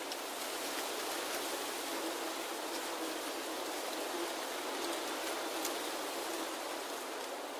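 Foliage in a wood rustling steadily, an even hiss of leaves with a few small crackles scattered through it.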